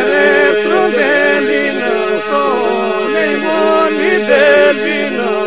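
Southern Albanian polyphonic folk song sung a cappella by a group: a steady held drone (iso) under one or two solo voices that weave and ornament above it.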